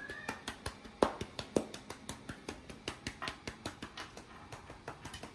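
A hand patting a cat's rump and back in a fast, uneven series of light slaps, about five a second, the loudest about a second in.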